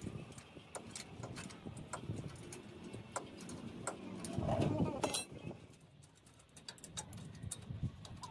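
Scattered sharp metallic clicks and taps of hand tools on engine parts, with a muffled voice or louder handling sound about halfway through.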